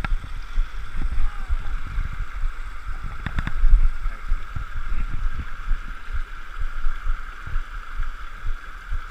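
Small rocky woodland stream running and splashing over stones, a steady rush of water, with irregular low thumps and rumble throughout and a short burst of clicks just over three seconds in.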